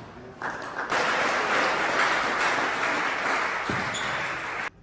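Applause in a sports hall after a table tennis rally, starting about a second in, easing off a little, then cutting off suddenly near the end.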